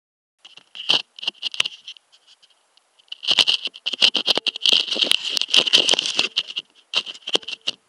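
Rapid, irregular scratching and rustling close to the microphone, in two busy spells with a lull between.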